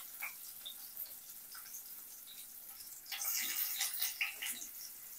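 Chopped onion frying in hot oil in an aluminium pressure cooker pan, a faint steady sizzle. From about three seconds in, a steel spoon stirs the onion, scraping lightly against the pan.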